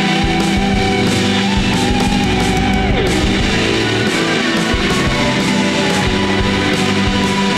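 Fuzz-heavy shoegaze/noise rock: a dense wall of distorted electric guitars over a steady beat. One note slides down in pitch about three seconds in.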